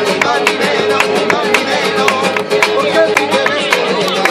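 Flamenco played live on two acoustic guitars, with many sharp percussive strokes.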